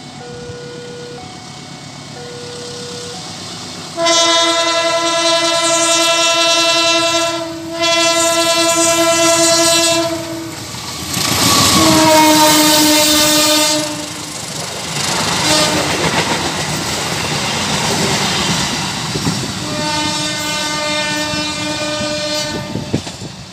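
A diesel locomotive's horn sounds long, loud blasts as a train approaches and runs past close by. It drops slightly in pitch as it passes, over the rumble and rail clatter of the train, and sounds one more, fainter blast near the end as the train moves away. Before the horn starts, a warning tone pulses about once a second, typical of a level-crossing alarm.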